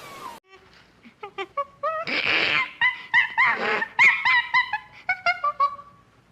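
An animal giving a quick series of short, high-pitched squeaky calls, with two brief breathy, noisy bursts in the middle.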